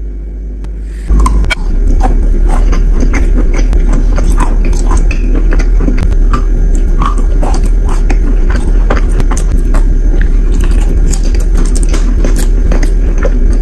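Close-miked biting and chewing of wet chalk: a dense run of crisp crunches and crackles that starts about a second in, over a steady low rumble.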